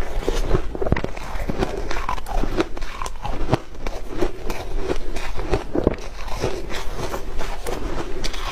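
Chewing refrozen shaved ice: a dense run of small, crisp crunches and crackles as the icy mouthful breaks up.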